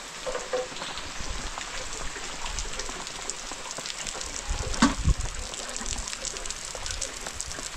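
Steady rain falling, a dense patter of fine drop ticks, with one louder thump about five seconds in.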